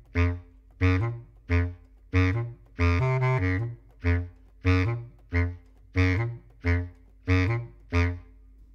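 Tenor saxophone and bass clarinet play short, separated notes together in a repeating jazz figure, about one every two thirds of a second, with one longer held note around three seconds in.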